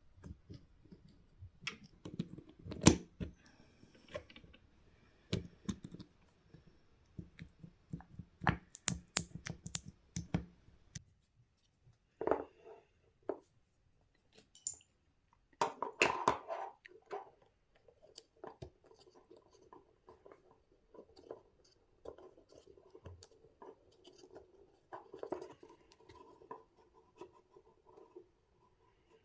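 Small tool parts being handled and fitted on a workbench: scattered clicks, taps and scraping, with a few sharper knocks, then a faint steady hum in the second half.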